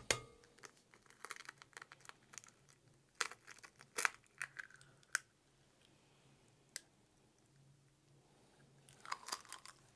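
A hen's egg being cracked by hand over a glass bowl: faint clicks, then a cluster of sharp cracks and crackling about three to five seconds in as the shell breaks and is pulled apart, and one more click near the end.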